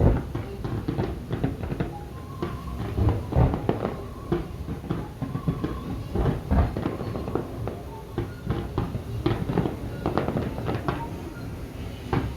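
Fireworks going off in a rapid, irregular string of bangs and crackles, the deepest booms about three and six and a half seconds in.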